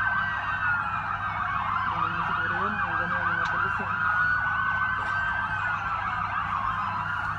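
Several emergency-vehicle sirens wailing at once, their overlapping tones slowly rising and falling in pitch, on the scene of an explosion.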